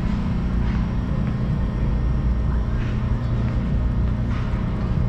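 Steady low engine rumble of a ride vehicle, heard while riding along, with faint light clatters now and then.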